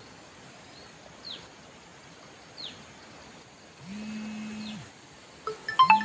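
Steady rush of a stream at a spillway, with a bird's short falling call three times. About four seconds in, background music begins with a low held note, then plucked, bell-like notes near the end.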